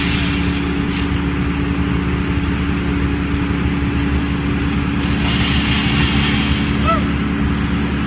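Large works truck's engine and truck-mounted machinery running steadily: a constant loud drone with a fixed low hum.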